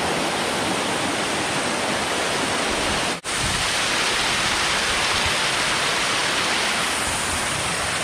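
Waterfall water rushing over rocks, heard up close as a steady roar of noise. It drops out for an instant about three seconds in.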